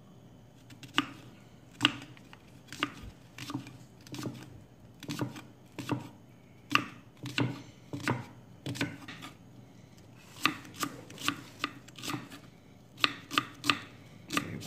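Kitchen knife cutting and chopping an onion on a thick wooden chopping board: sharp, separate knocks of the blade on the board about once a second, with a quicker run of chops near the end.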